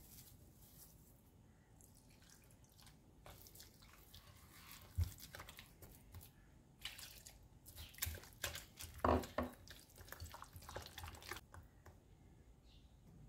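A hand squeezing and kneading wet mashed potato dough in a glass bowl: irregular wet squelches and soft knocks, busiest and loudest about seven to eleven seconds in.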